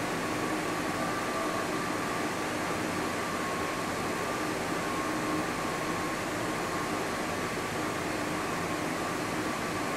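Steady room ventilation noise: an even hiss and hum with a faint, thin steady whine, unchanging throughout.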